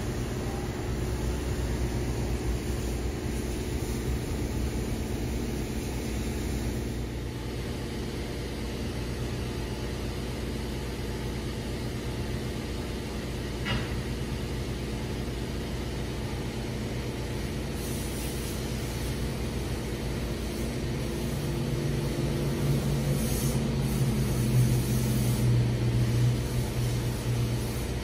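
Steady low drone of car wash machinery, heard through a window pane. A deeper hum swells louder about three quarters of the way through, and there is one short click around the middle.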